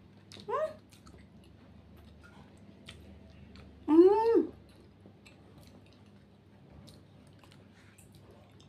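Short, high cries from a small pet animal, each rising and then falling in pitch: one just after the start and a longer, louder one about four seconds in. Faint chewing of a soft pastry lies between them.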